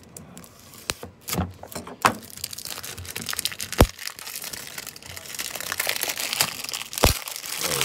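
Cellophane wrapper on a cigar box crinkling and crackling as it is worked loose and torn off, with a few sharp knocks from handling the box in the first half. The crinkling grows denser after about halfway.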